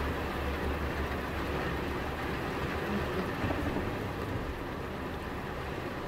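Heavy rain falling on the glass and body of a parked car, a steady hiss, with a low rumble underneath that is strongest in the first second and then eases.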